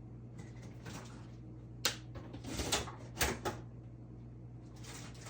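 Food containers being handled on a kitchen counter: a sharp click a little under two seconds in, then a few knocks and rustles, over a low steady hum.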